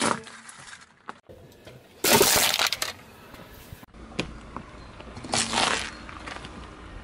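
Small objects crushed under a car tyre: a loud crunching crackle about two seconds in, and a second, shorter crunch a little after five seconds.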